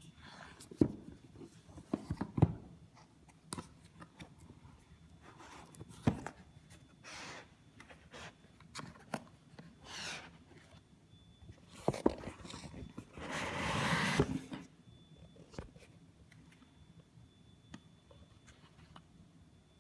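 Product packaging being opened and handled: scattered taps and knocks with short scraping and rustling sounds, the longest rustle about two-thirds of the way through.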